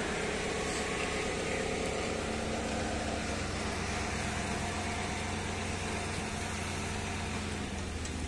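GMC Yukon's V8 engine idling steadily.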